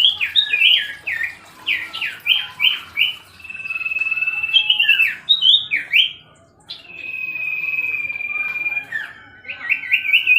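Common iora (cipoh) singing: long, level, high whistles alternating with quick runs of sharp, falling notes.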